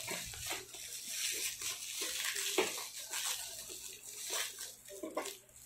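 A black plastic courier pouch and the bubble wrap inside it crinkling and rustling irregularly as hands pull and tear the package open.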